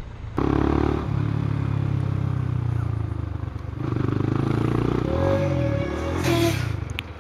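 Yamaha motorcycle's engine running under way, steady at first, then its pitch rising and falling as the rider speeds up and slows. A short hiss about six seconds in.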